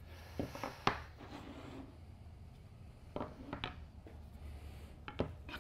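Wooden picture-frame corner samples being handled on a tabletop: a few light knocks and scrapes as they are picked up, slid and set down, over a steady low hum.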